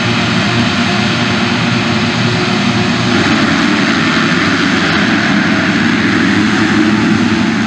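A full gate of MX2 motocross bikes at full throttle together, revving at the start and launching off the line as one dense, loud engine noise that swells a little about three seconds in.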